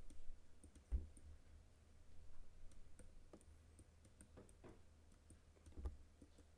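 Faint, scattered computer mouse clicks over quiet room tone, the strongest about a second in and near six seconds.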